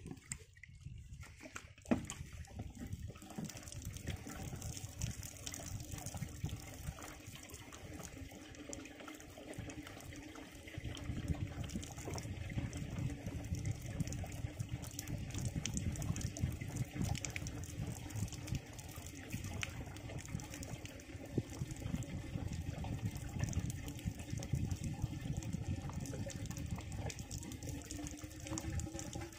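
Water poured from a plastic jerrycan into an engine-driven water pump's casing to prime it. It is a steady pour that gets louder about eleven seconds in, with a faint pitch rising near the end.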